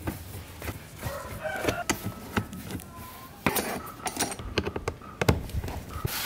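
Screwdriver working the screws out of an old fan's plastic housing: scraping and clicking of metal on plastic, with a few sharp knocks as the housing is handled on the wooden bench.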